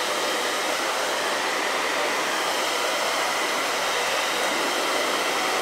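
Handheld hair dryer running steadily on its hot, high setting: a constant rush of blown air with a faint steady whine.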